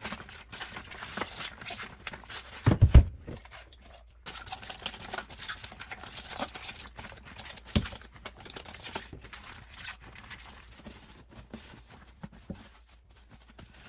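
Plastic parts of a Dyson vacuum's dust bin being handled: irregular rustling and light clicks, with a heavy knock about three seconds in and a sharper one near eight seconds.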